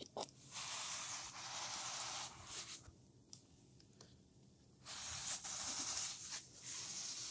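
A towel wiping dirt from a vinyl car wrap in long rubbing strokes, two of them each lasting about a second and a half, with a third starting near the end. The dirt is sticking to the uncoated wrap, so it is hard to wipe.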